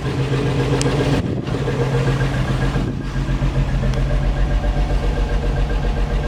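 Freshly rebuilt 1963 Rambler American inline-six engine idling steadily on its first run, with an even low pulse; the owner notes a bit of an exhaust leak.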